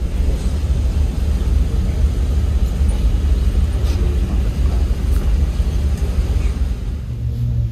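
Steady low rumble of the passenger ship KM Dorolonda under way at sea, heard inside the ship, with a few faint knocks and rustles.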